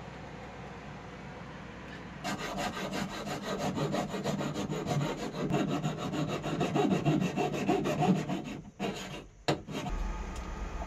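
Rhythmic rasping scrape from hand work on the bilge hose and its fittings, several strokes a second for about six seconds, followed by a couple of short knocks.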